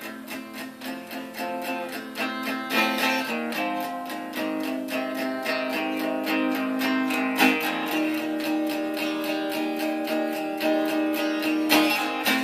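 Hollow-body electric guitar strummed in a steady rhythm, the chord changing every few seconds.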